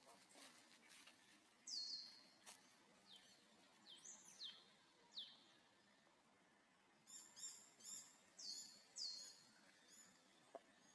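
Faint, high bird chirps: a series of short notes that each sweep downward, with a quick flurry of short chirps about seven seconds in.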